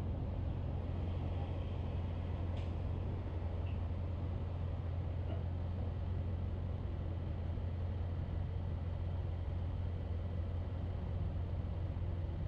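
A car driving at a steady pace: a continuous low drone of engine and road noise, with one faint click about two and a half seconds in.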